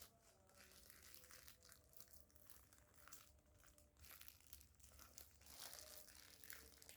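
Faint crinkling and rustling of parcel packaging being handled and opened.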